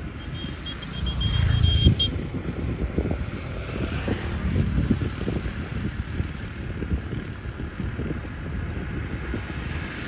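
Wind buffeting the microphone in fluttering low rumbles, over a steady hiss of heavy rain. A short run of high, thin pulsed tones sounds in the first two seconds.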